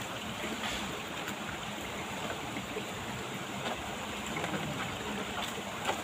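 Steady rush of shallow stream water running between rocks, with a few faint clicks.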